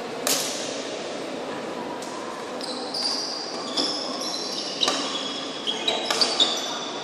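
Badminton rally: sharp racket-on-shuttlecock hits, the loudest about a third of a second in, then several more from about four seconds on, with short high squeaks from players' shoes on the court floor.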